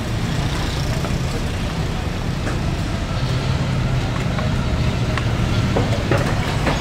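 Steady street traffic noise, with a few short knocks of a knife on a wooden chopping block as chicken is cut.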